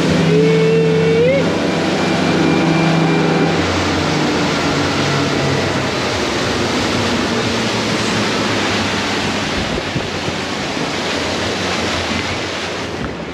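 Center-console motorboat running at speed: steady engine hum with a brief rising tone near the start, giving way after a few seconds to a loud, even rush of wind and spray off the hull.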